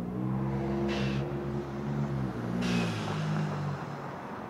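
Exhaust of a 2013 Ford F-150 with its 3.5-litre twin-turbo EcoBoost V6 and resonator deleted, the electric exhaust cutout open, as it drives by accelerating; the exhaust note steps in pitch through the shifts. Two short hissing whooshes, typical of a blow-off valve venting, come about a second and nearly three seconds in.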